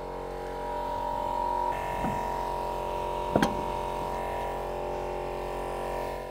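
Electric air compressor running with a steady buzzing hum. A light knock comes about two seconds in, and a sharper, louder knock about a second and a half later.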